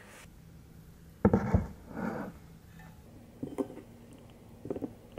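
Chopsticks clicking against a ceramic bowl a few times, after a louder clatter about a second in.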